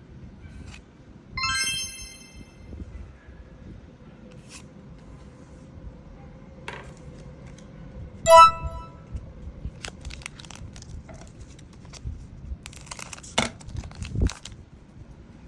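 Two short bright chimes ring out, one about a second and a half in and a louder one about eight seconds in. Light rustling and clicks of card packs being handled run between them and near the end.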